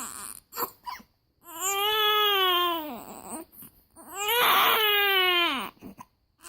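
A baby with the hiccups crying: two short, sharp catches about half a second in, then two long wails that rise and fall, each about a second and a half.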